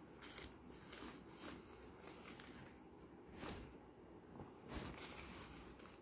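Faint rustling and brushing of a Hermès herringbone cotton dust bag being handled and drawn back off a leather handbag, in scattered soft swishes.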